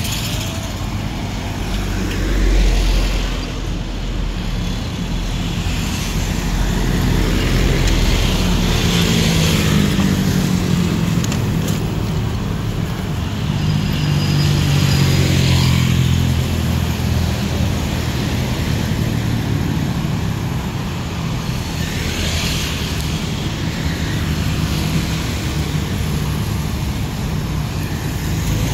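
Road traffic, mostly motorcycles and scooters, passing close by with the engines rising and falling. A heavier low rumble swells about two seconds in as a small truck goes by.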